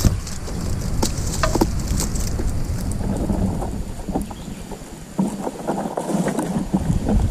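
Wind buffeting the microphone, with rustling of dry oil palm fronds and leaf litter and scattered small clicks. There is one sharp knock at the very start.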